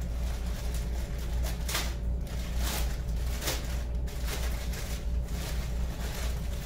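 Plastic mailer bag rustling and crinkling in a series of irregular short bursts as it is handled and opened, over a steady low hum.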